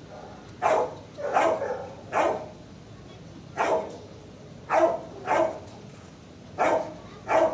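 A dog barking repeatedly in the shelter kennels, about eight sharp barks at uneven intervals, often in pairs, while Boco chews his bone quietly.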